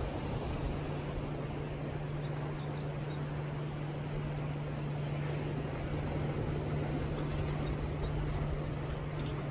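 Engine of a small motorboat running at speed, a steady low drone, over wind and water noise, with a few faint high chirps.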